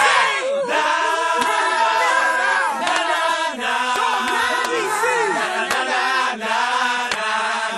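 Many voices singing together in a chant-like choral line.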